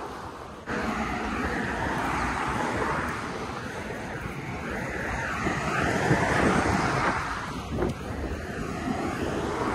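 Wind buffeting the microphone while moving along the path, a steady rushing noise that cuts in abruptly about half a second in.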